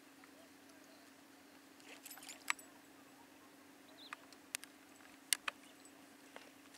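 A few sharp clicks and taps, scattered singly across a few seconds, over a faint steady hum.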